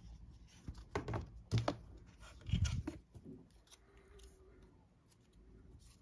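Cardboard packaging of an Apple Watch box being handled: a few sharp knocks and scrapes as the inner sleeve is lifted out, loudest a little before halfway. Then quieter rubbing as the watch is turned over in the fingers.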